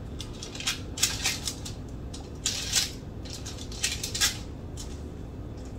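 Hands pressing balls of bun dough flat on a parchment-lined metal baking sheet: a few short, irregular rustles and taps of paper and pan, the longest about two and a half seconds in.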